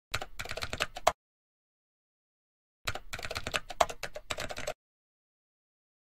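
Keyboard typing sound effect: quick keystrokes in two runs, about a second at the start and about two seconds starting near the three-second mark, with dead silence between.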